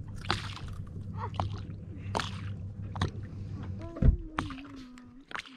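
Water slapping and sloshing against the hull of a small boat, in short irregular splashes. A low steady hum runs underneath and stops after a sharp thump about four seconds in.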